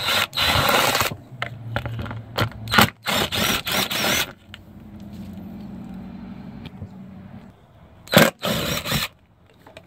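Cordless impact wrench with a 10 mm socket running in several short bursts as it hammers out the bolts holding a car's plastic undertray, with a quieter steady whir in the middle.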